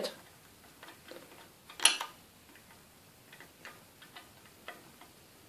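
Small flathead screwdriver turning a brass terminal screw in a UK mains plug: faint, irregular ticks and scrapes, with one sharper click about two seconds in.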